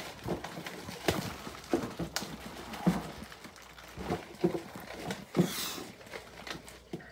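A sealed plastic bag of makeup being handled and opened: irregular light knocks and rustles, with a short burst of crinkling plastic about five and a half seconds in.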